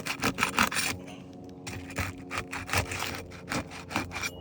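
Flat pry bar being worked under an asphalt roof shingle, scraping and rubbing as it breaks the shingle's sealant strip loose, in a run of quick strokes with a short pause about a second in.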